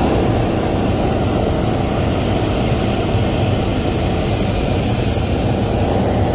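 Hot air balloon's propane burner firing one long, loud, steady blast.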